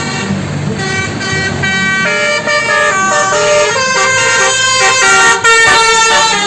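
A bus's multi-tone 'telolet basuri' musical air horn playing a tune of short held notes that change pitch in quick steps. It starts about a second in and gets louder toward the end, over a low engine hum.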